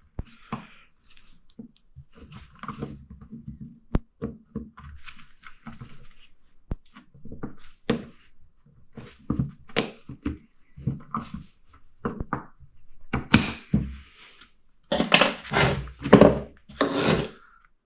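Irregular knocks and clanks of hand tools and metal parts being handled while a wheel bearing and knuckle are taken apart, with a busier run of clattering near the end.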